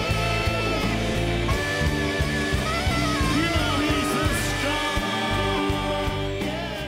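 Live band music: a man singing over a steady beat with the band playing along; the music fades out near the end.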